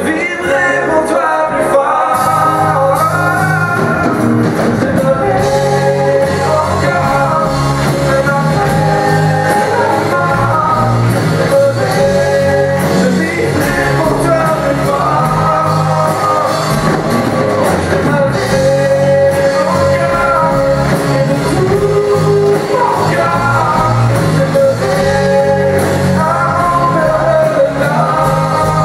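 Live pop song sung by a large group of voices together, backed by piano, guitar and drums.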